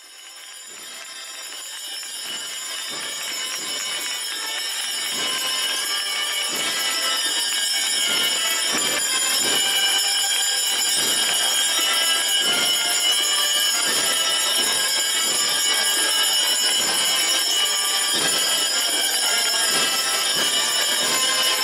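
Dense crowd noise with a steady, high metallic jingling over it, fading in over the first several seconds and then holding level.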